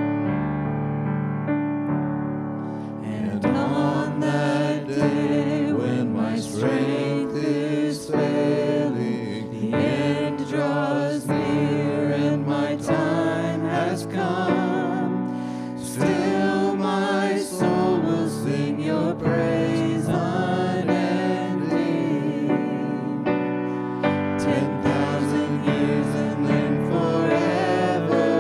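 Live worship song by a church worship team: sustained keyboard chords, with singing voices coming in about three seconds in.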